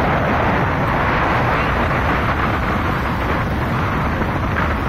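Wind buffeting the microphone over the steady wash of small waves breaking on a shallow shore.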